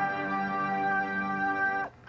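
Played-back emergency alert alarm for Saudi Arabia: a long, steady blaring chord of several tones that cuts off with a short falling slide near the end.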